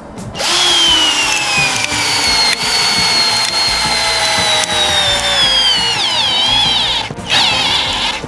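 Favourite DC 1802 cordless drill/driver running: a loud motor whine whose pitch slowly sinks, then wavers, before it stops about seven seconds in. It then runs again for a short burst.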